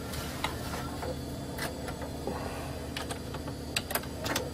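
Computer keyboard keys clicking as 'b:' is typed at a DOS prompt and Enter is pressed to switch to the floppy drive: a handful of sharp, unevenly spaced clacks, the loudest few near the end, over a steady low hum.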